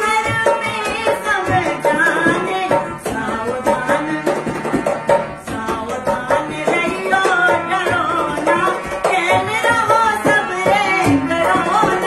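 Indian folk song: a voice singing a wavering melody, accompanied by harmonium and a dholak drum beating a steady rhythm.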